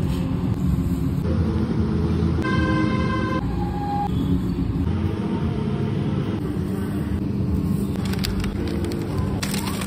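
Steady street-traffic rumble, with a short vehicle horn toot about two and a half seconds in.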